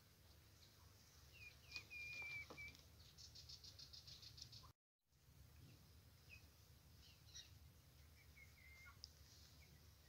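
Faint bird chirps and short whistles, with a quick run of high clicking notes just before the middle, over a low steady rumble. The sound drops out completely for a moment near the middle.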